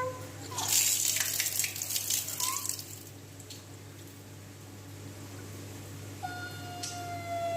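A couple of seconds of rushing, hissing noise like running water, starting just after a steady tone cuts off. After a quieter spell, a long pitched call begins near the end, holding its pitch and then rising.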